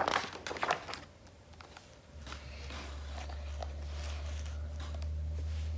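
A picture book's paper page being turned, rustling and crackling through the first second, then faint light ticks as hands smooth the book flat on a table. A steady low hum comes in about two seconds in.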